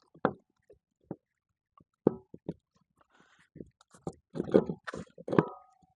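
Irregular knocks and clunks of metal parts and a trailer wheel being handled during a tire change, thickest in the second half, one near the end ringing briefly like struck metal.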